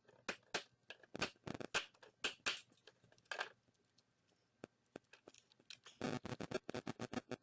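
Hammer striking a hair dryer's plastic housing to break it open: a series of sharp knocks, a couple a second, then a quick flurry of blows near the end.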